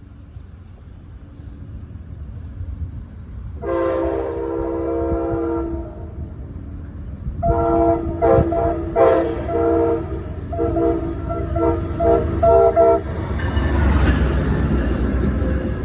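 Locomotive air horn sounding a multi-note chord: one long blast, then after a short pause a run of further blasts broken by brief gaps. The train's rumble grows under it, and near the end the train passes with loud rail and wheel noise.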